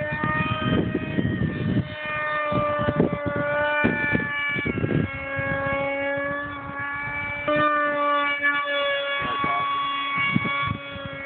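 Electric brushless motor (Super MegaJet V2) spinning a 7x4 APC propeller on an RC foam jet in flight, a steady whine whose pitch drifts slightly up and down with throttle. Wind buffets the microphone for the first two seconds.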